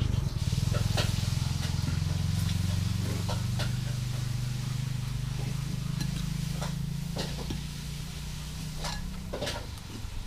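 A vehicle engine running nearby, a low steady hum that fades away about nine seconds in, with light clinks of a spoon and chopsticks against a noodle bowl.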